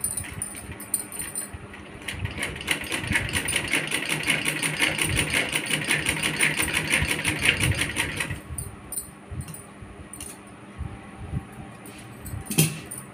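Sewing machine stitching a straight seam through layered cloth, a rapid even clatter that starts about two seconds in and stops about six seconds later. A few light knocks follow, and a louder knock comes near the end.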